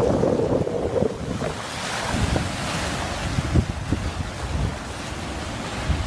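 Sea waves breaking and washing up a pebble beach, with a swell of surf hiss about two to three seconds in. Wind buffets the microphone with low rumbles, strongest at the start.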